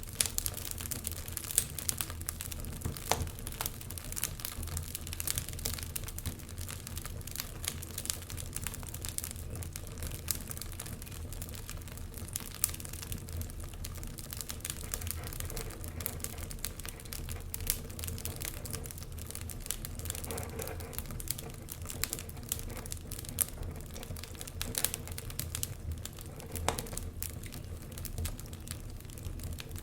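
Wood fire crackling in a fireplace: frequent small, irregular pops and snaps over a low steady rumble.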